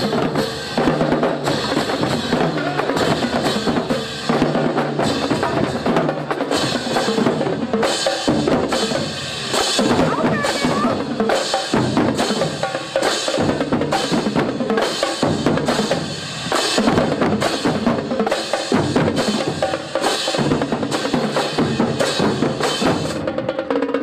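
Marching drumline of snare, tenor and bass drums playing a fast, steady cadence.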